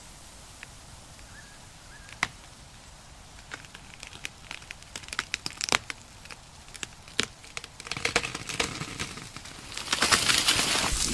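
Crackling and rustling: scattered sharp clicks that grow denser from about four seconds in and swell into a loud, continuous crackle near the end.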